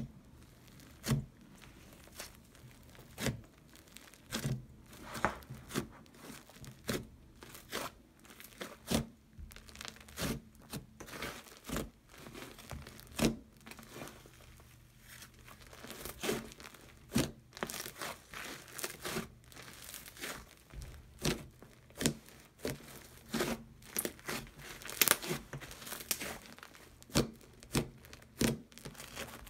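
Hands stretching, pulling apart and pressing an airy, inflated slime, which gives irregular sharp pops, crackles and tearing sounds, about one or two a second.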